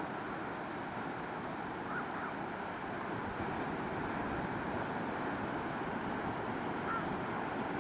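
Ocean surf breaking and washing in a steady roar of noise, with some wind on the microphone.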